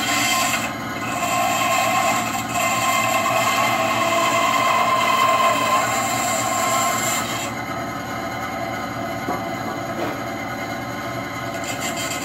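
Electric power tool running steadily under load while the slot in a walnut hammer handle is cut wider; its high hiss drops away about two-thirds of the way through.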